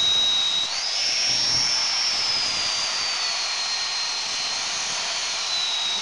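FEIN GHB 15-50 handheld belt grinder grinding a steel plate: a high motor whine over the hiss of the abrasive belt on the metal. The whine jumps up in pitch about a second in, then sinks slowly back down over the next few seconds.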